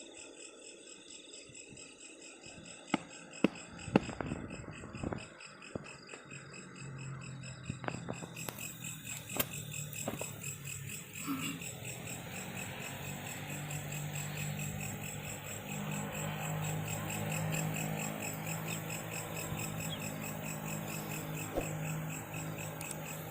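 Insects chirping in a steady, evenly pulsing chorus. A few sharp knocks come in the first few seconds, and from about seven seconds in a low steady hum builds up beneath the chorus.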